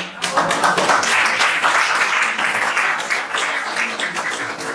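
Audience applauding: many hands clapping together, starting suddenly and slowly dying down toward the end.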